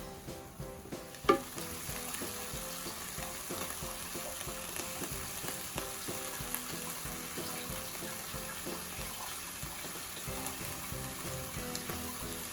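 Shredded chicken for chicken floss frying and sizzling in oil in a pan as it is stirred. A sharp knock of the utensil against the pan comes about a second in.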